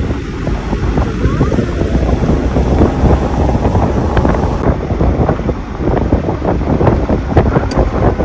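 Loud wind buffeting the microphone, a steady rumble with constant crackling gusts.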